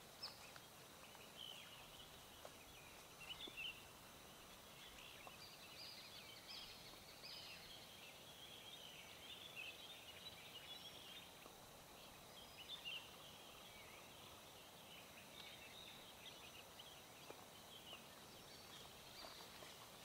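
Faint birds chirping and twittering: many short, high calls scattered throughout, over a low, steady outdoor hiss.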